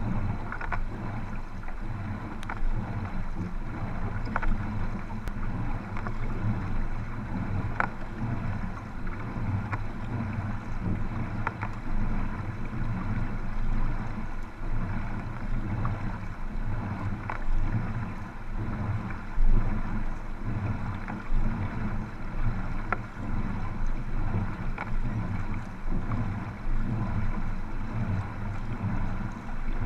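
Water sloshing and rushing at the waterline as sprint canoes are paddled, with wind buffeting the microphone. Occasional sharp clicks stand out above the water noise.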